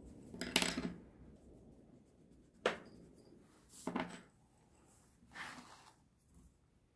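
Sketching strokes of a drawing tool: three short scratchy strokes and one sharp tap about two and a half seconds in, with pauses between them.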